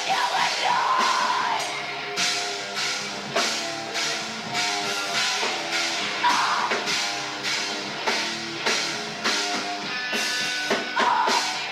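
Rock band playing live: a drum kit keeps a steady beat under electric guitar and bass.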